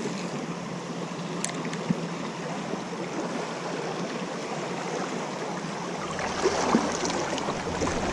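Shallow creek water running steadily, growing a little louder about three-quarters of the way in.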